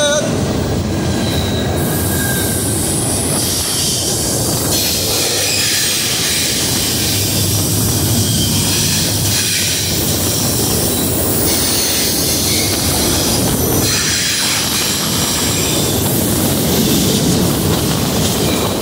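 Florida East Coast Railway freight train's well cars rolling past at close range: a steady rumble and rattle of wheels on rail, with high-pitched wheel squeal coming and going several times.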